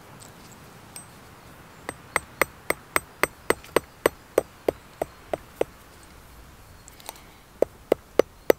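Ball-peen hammer striking copper wire on a small steel anvil, cold forging it: a run of about fourteen quick taps at roughly three a second, each with a short metallic ring, then a pause and four more taps near the end.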